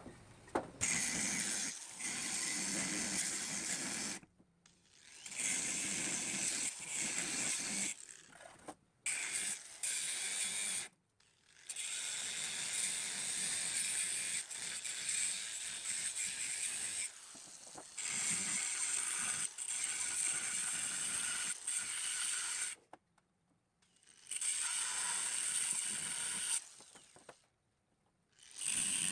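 Mechanical workshop noise from metalwork on the pump, a clicking, ratcheting kind of sound. It comes in several stretches of a few seconds each, broken by abrupt cuts to near silence.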